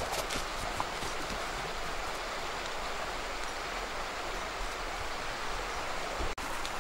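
Steady, even rush of a flowing stream.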